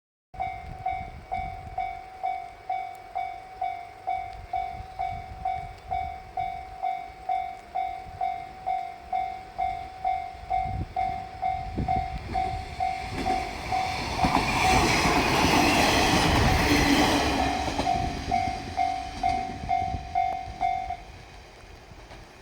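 Japanese electronic level-crossing alarm ringing at about two strikes a second while a diesel multiple unit passes over the crossing. The train's noise swells past the middle, is loudest for a few seconds, then fades, and the alarm stops shortly before the end.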